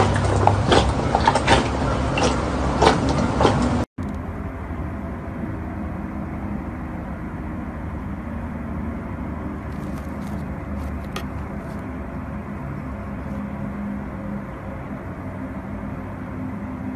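Hands kneading thick glossy slime in a glass bowl: wet squelching with many small popping clicks for about four seconds. After a sudden break, a steady low rumble of background noise follows, with a few faint clicks partway through.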